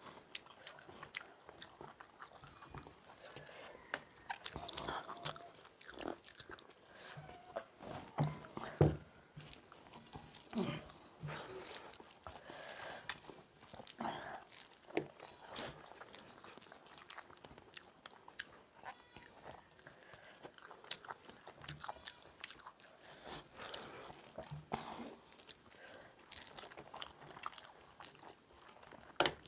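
Two people eating rice and curry by hand: irregular chewing, biting and mouth smacks, with fingers mixing food on steel plates, including biting into fried chicken. The loudest smack comes about nine seconds in.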